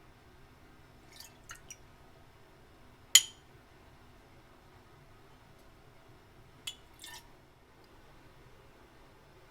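A few short, sharp clinks of small hard objects: three light ones just after a second in, one loud one about three seconds in, and two more near seven seconds.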